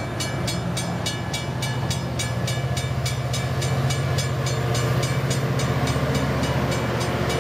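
Amtrak Pacific Surfliner train passing at close range with a steady low engine drone that grows louder about four seconds in as the locomotive goes by. A grade-crossing bell rings about four times a second throughout, fading towards the end.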